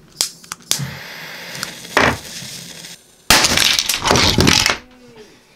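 A loud crash of something smashing and shattering, like breaking glass, starting about three seconds in and lasting over a second. It is preceded by a few sharp clinks and a single hit about two seconds in.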